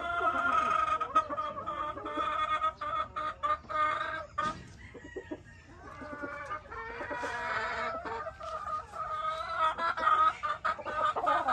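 Sweater gamefowl hens and rooster clucking and calling, with longer drawn-out calls near the start, in the middle and near the end, and a run of quick clucks a few seconds in.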